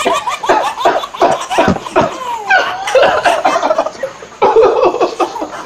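Children laughing hard in quick, repeated bursts, with a short lull about four seconds in.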